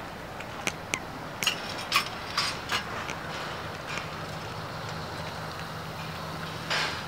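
Several sharp metal clanks and knocks in the first few seconds, typical of cows shifting their heads in steel self-locking headlock stanchions. A low steady hum comes in about halfway through, and a short rush of noise follows near the end.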